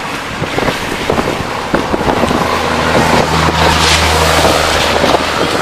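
Railway maintenance train going by: a noisy clattering rumble with scattered clicks, and a steady low engine drone that swells in about two seconds in and is loudest near the middle.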